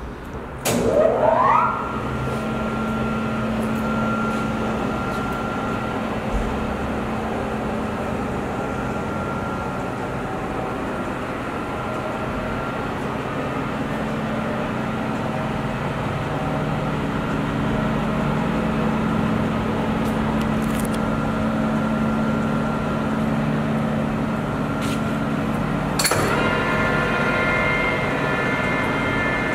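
Lodge & Shipley 26" x 144" engine lathe starting up: the spindle drive winds up in a rising whine over about a second, then runs steadily with a hum and held gear-whine tones. Near the end there is a click, after which a higher whine joins in.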